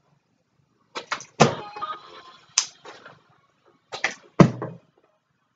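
A partly filled plastic water bottle flipped onto a wooden dresser, twice. About a second in, a few sharp knocks and a short clatter as it hits the wood and tumbles; a second throw near four seconds in ends in another sharp knock.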